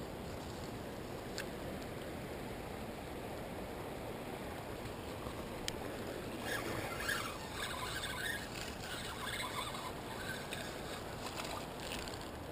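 Steady rushing of fast river current in a dam's tailwater, with a few small clicks. The sound grows a little busier from about halfway.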